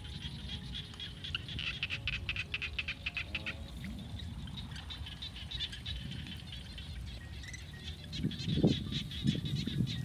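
Fast, high-pitched chirping trills from small animals in the field, repeated in two long runs. A low rumble, the loudest sound here, comes in between about eight and nine and a half seconds in.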